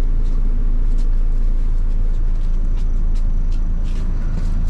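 A bus's engine running with a steady low rumble, heard inside the passenger cabin, with a few light clicks over it.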